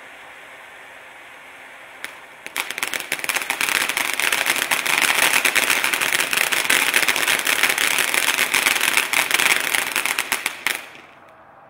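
Blistering Cactus fireworks fountain burning: a steady hiss, then about two and a half seconds in it breaks into loud, dense, rapid crackling. Near the end the crackling stops suddenly, leaving only a faint hiss.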